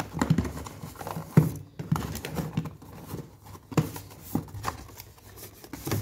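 Packaged cosmetic products being handled and set down on a table one after another: irregular light knocks and taps with rustling of packaging, the loudest knock about a second and a half in.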